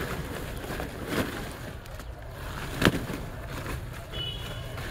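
Wet, muddy woven plastic sack being pulled open and handled, with a couple of sharp slaps, the loudest about three seconds in. A brief high-pitched tone sounds near the end.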